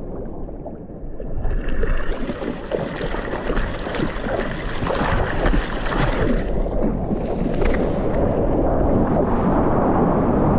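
Water splashing and rushing around a surfboard as it is paddled into a small wave and starts to ride it, with wind buffeting the microphone. The splashing is busiest a couple of seconds in, and the rush of spray off the board turns steadier near the end.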